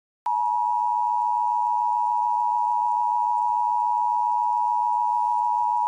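Emergency Alert System attention signal: a steady two-tone electronic tone held for about five and a half seconds, then cut off abruptly. It is the alert tone that marks the start of an emergency broadcast message.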